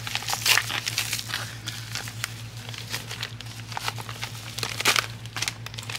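Paper and plastic packaging crinkling and rustling as it is unwrapped by hand, a yellow padded mailer opened and its contents pulled out, in irregular crackles. The loudest crackles come about half a second in and again near five seconds.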